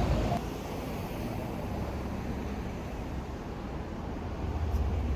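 Low, steady outdoor rumble of road traffic, swelling a little near the end; background music cuts off about half a second in.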